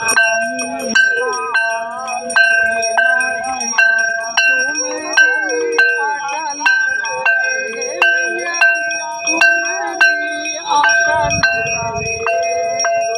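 A hand bell rung steadily at an aarti, about two strikes a second, each strike ringing on. Under it, several voices sing the aarti hymn together.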